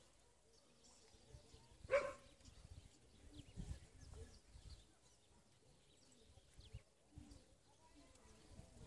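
Quiet outdoor background broken by a single short animal call about two seconds in, with a few faint bird chirps.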